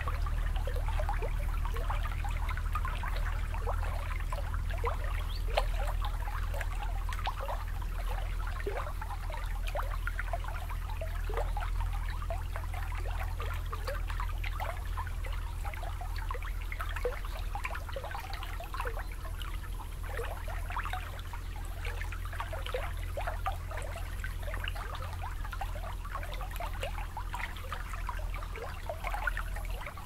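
Shallow water lapping and trickling at the shore: a constant patter of small bubbling plinks over a steady low rumble.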